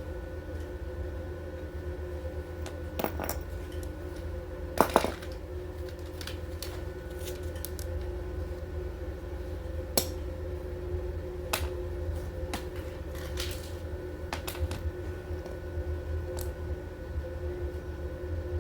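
Small metal parts clicking and clinking as they are handled during assembly, a few scattered knocks with the loudest pair about five seconds in, over a steady low hum.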